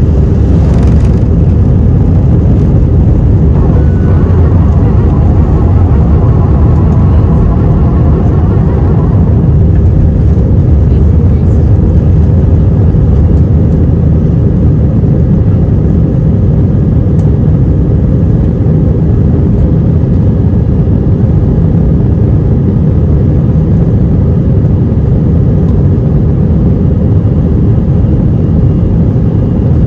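Loud, steady low rumble of jet engines and rushing air inside the cabin of an Airbus A319-100. About four seconds in, a faint higher whine comes in for several seconds.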